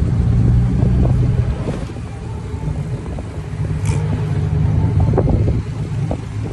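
Honda Gold Wing touring motorcycles running at a low, steady cruising speed, with wind noise on the microphone.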